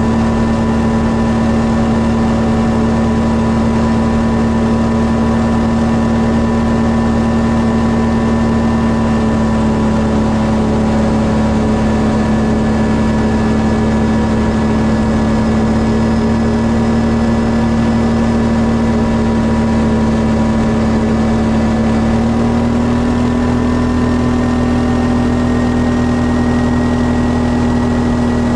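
Quad bike (ATV) engine running steadily at cruising speed on the road, a constant engine hum; about three-quarters of the way through its pitch steps up slightly as it speeds up a little.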